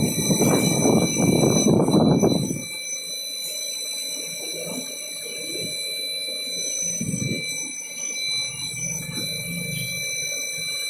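Vertical engine-head surface grinding machine running as it grinds an aluminium cylinder head, with a steady high whine throughout. A louder rough, rushing noise fills the first two and a half seconds.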